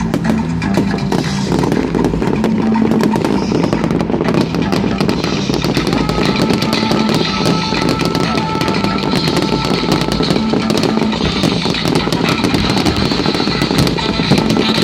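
Fireworks crackling and popping in a dense, continuous barrage, with music playing along underneath.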